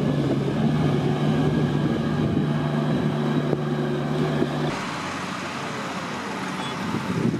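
Diesel engine of a sand-laden Volvo A30E articulated dump truck running steadily under load as it drives off. About two-thirds of the way through, the sound cuts to a quieter, even engine hum mixed with wind.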